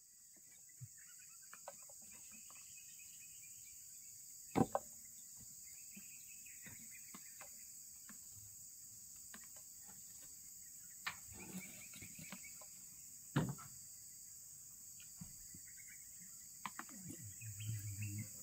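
Steady high drone of insects, with a few sharp clicks, two of them loud, about four and a half and thirteen seconds in.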